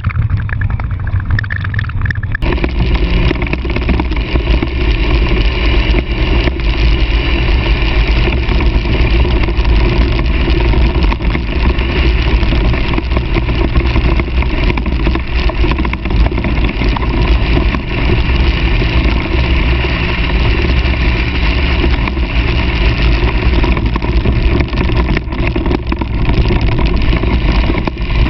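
Car driving fast on a dirt track, heard from a camera mounted on the outside of its body: steady, loud engine and road noise. About two seconds in, the sound jumps from the quieter in-cabin sound to this louder outside sound.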